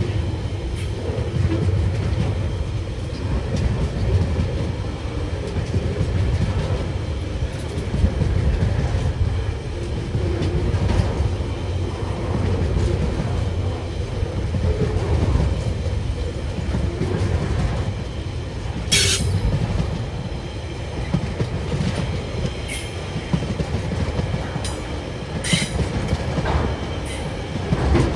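Freight train wagons rolling past on the rails: a steady low rumble with wheels clacking over the rail joints, and a few brief high-pitched wheel squeals in the second half.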